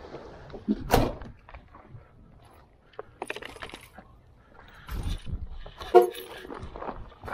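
Close handling noise, clicks and crinkles from a plastic water bottle held near the microphone. There is a sharp knock about a second in and another about six seconds in, with small scattered ticks between them.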